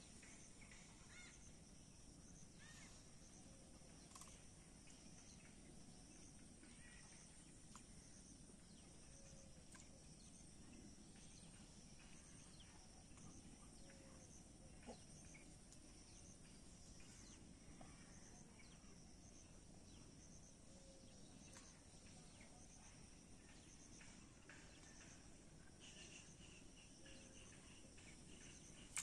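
Quiet outdoor ambience: a faint, steady high insect chorus, with scattered faint bird chirps and one small tick about halfway through.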